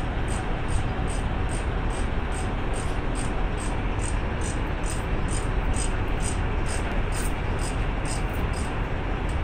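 Heavy diesel truck hauling a subway car on a lowboy trailer, running at a crawl with a steady low rumble. A faint high ticking repeats about two or three times a second.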